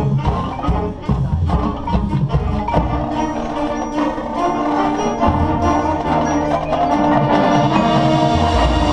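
Marching band playing its field show: mallet percussion and drums under sustained band chords, growing louder near the end.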